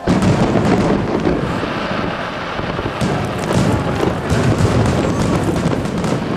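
Aerial firework shells bursting in a display. A loud bang opens it, then a dense crackle of many small pops over a low rumble, with another burst about three seconds in.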